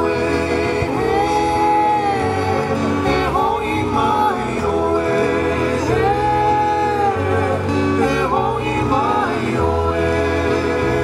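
Live Hawaiian music: a singer holding long, gliding notes over ukulele and guitar strumming, with a low bass line stepping underneath.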